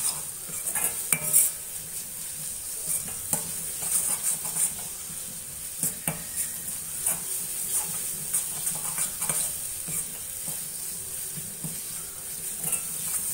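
Metal spatula scraping and knocking irregularly against a metal kadai as a thick onion-tomato masala paste is stirred, over a steady sizzle of the paste frying in oil. The masala is being sautéed until the oil separates, before the meat is added.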